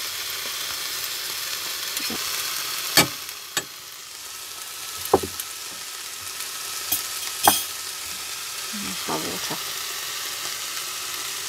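Chicken and vegetable stir fry sizzling steadily in a frying pan, with a few sharp clacks of the spatula against the pan while it is stirred in the first half.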